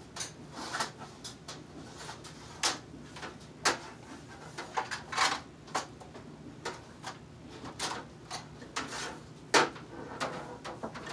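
Rummaging through stored gear: irregular clunks, knocks and scraping rustles as things are shifted and pulled out, the loudest knock near the end.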